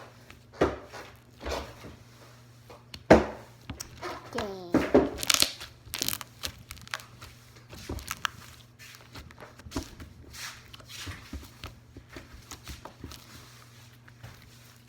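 Slime being squished, stretched and poked by hand for ASMR: irregular sticky clicks, crackles and pops, with a short squelch about four and a half seconds in.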